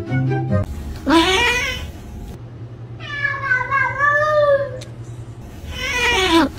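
Domestic cats meowing: a short rising meow, then a long, wavering yowl, then another rising meow near the end.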